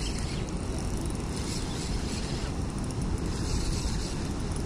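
Steady rushing wind noise on the microphone, strongest in the low rumble, with no distinct events.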